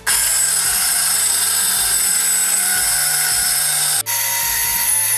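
Electric mixer grinder running at full speed, its stainless-steel jar grinding a wet masala paste with a little water added. It stops for a split second about four seconds in, then starts again.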